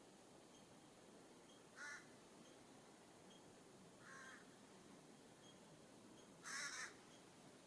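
California scrub-jay giving three short, harsh rasping calls, about two seconds apart, the last the longest and loudest. Faint high chips from small birds sound in the background.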